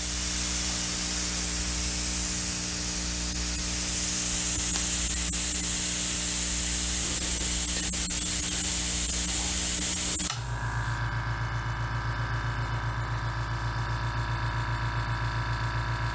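Compressed air hissing steadily out of an open airbrush fed at 30 PSI from the tank of a Fortress Ultra Quiet 1-gallon oil-free compressor. About ten seconds in the hiss stops abruptly and the compressor's motor starts running, a quiet steady hum with a fast, even pulsing, as it refills the drawn-down tank.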